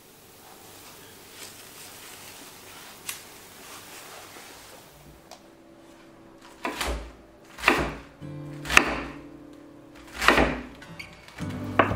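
Large kitchen knife cutting through a head of napa cabbage onto a wooden cutting board: five loud cuts, roughly a second or so apart, in the second half. The first half is quiet apart from a couple of faint clicks.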